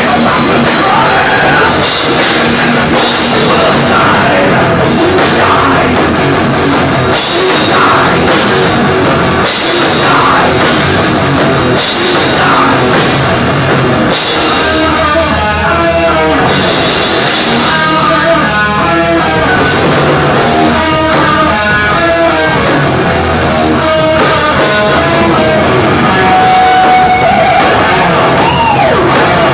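Live thrash metal band playing loud: a fast drum kit with crashing cymbals under distorted electric guitars, with a pitched lead line in the middle and sweeping pitch glides near the end.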